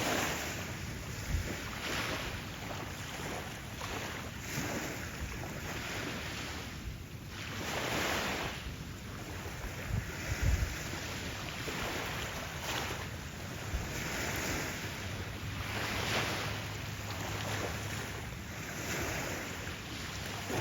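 Gentle waves washing onto a sandy beach, the surf swelling and ebbing every few seconds, with wind rumbling on the microphone. A low steady hum comes in about three quarters of the way through.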